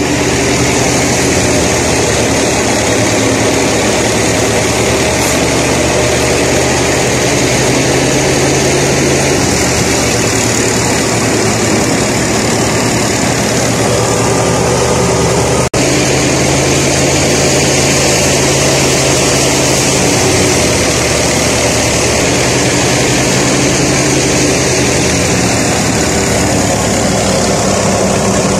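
Tractor engine running steadily, powering a wheat thresher, with the thresher's noise over the engine's low hum. The sound drops out for an instant about halfway through.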